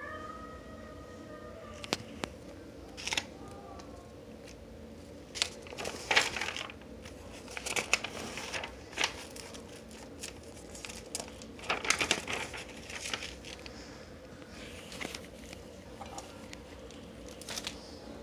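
Notebook paper rustling and crinkling in irregular bursts as the lined spiral-notebook pages are handled and turned. A faint steady hum runs underneath.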